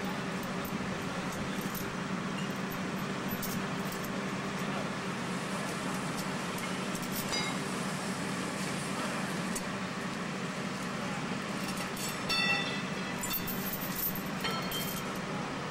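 An engine running steadily: an even low hum under a constant hiss, with a few short higher-pitched sounds on top.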